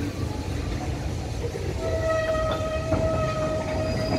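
Cement hopper wagons of a freight train rolling slowly past with a low, steady rumble. About two seconds in, a steady high squeal from the wheels starts and holds, with an occasional clank.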